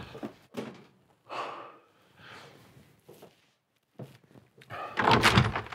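Tense breathing: a few short sharp breaths and gasps, with a louder burst of sound near the end.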